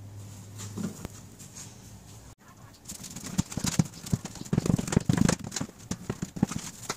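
Hands patting and pressing a ball of pizza dough flat on a plastic cutting board: a quiet start, then from about three seconds in a quick, irregular run of soft pats and thumps.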